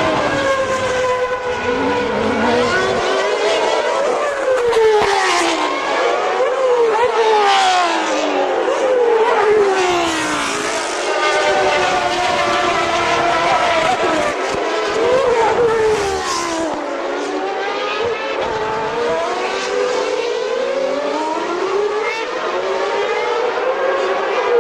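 Formula One cars' high-revving racing engines passing one after another, each engine note rising as the car accelerates and dropping in pitch as it goes by, several cars overlapping.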